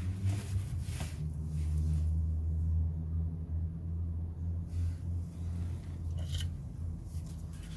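Engine oil pouring in a steady stream from a Nissan Micra K12's open sump drain hole into a drain pan: a continuous low pouring, with a few short clicks.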